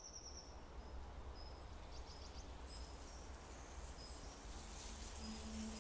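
Faint forest ambience: short high bird chirps come and go over a low, steady rumble. Near the end a low held musical note comes in.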